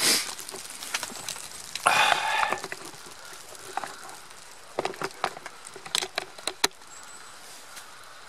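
Split firewood blocks clacking against one another as they are set into a stone-ringed fire pit: a string of short sharp wooden knocks in the second half, after a rustle about two seconds in.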